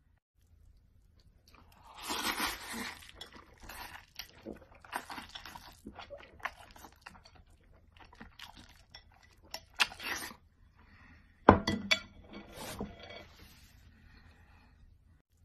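Close-up eating sounds: irregular bites and chewing mixed with utensils and chopsticks clinking and scraping on plates, with one sharp knock about three-quarters of the way through.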